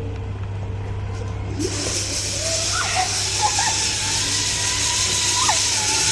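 Zip line trolley running along the steel cable: a rushing hiss starts about a second and a half in, and a thin whine rises, then holds and wavers as the pulley wheels roll.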